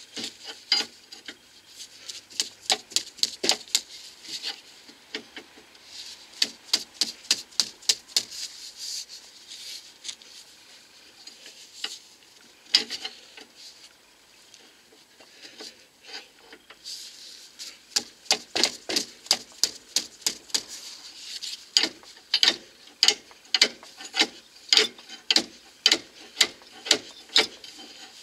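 Hand ratchet wrench clicking in quick, even runs as a nut is worked loose, the runs broken by pauses, with the longest run in the second half.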